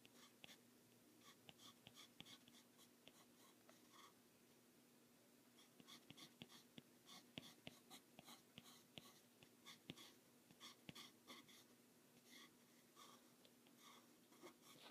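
Faint scratching of a coloured pencil on paper: quick, irregular shading strokes that thin out for a moment about four seconds in and come thickest in the middle, over a faint steady hum.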